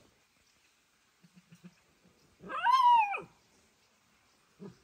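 Kitten meowing once, a single loud call with its pitch rising and then falling.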